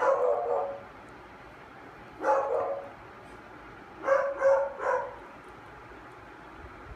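A dog giving short, high-pitched whiny barks: one at the start, one about two seconds in, and three in quick succession about four seconds in.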